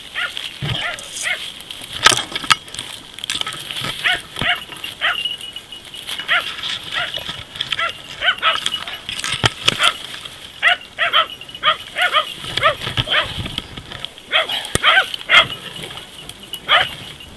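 Hunting dachshunds barking in quick, repeated yelps, baying at a wounded wild boar. The barking goes in clusters and thins out briefly around two-thirds of the way through.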